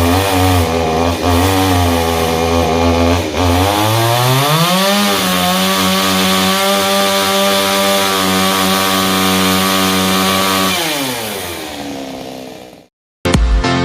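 Two-stroke chainsaw running at a lower engine speed, then revving up about four seconds in and holding at high speed before winding down and fading out near the end. Music with a beat starts just before the end.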